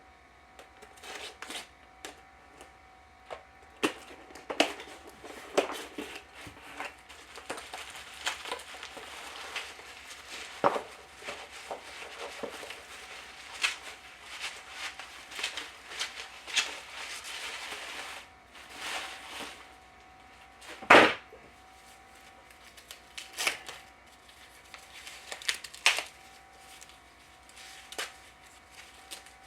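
Hands handling a laptop's replacement display assembly and small tools on a workbench: scattered clicks and taps, a stretch of rustling in the middle, and one loud sharp knock about two-thirds of the way through, over a faint steady whine.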